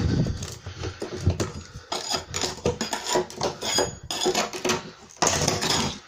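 Stiff steel-bladed scraper scraping along bare floorboards at the foot of the skirting: a run of rough, irregular scraping strokes with metallic clinks, the longest and loudest stroke near the end.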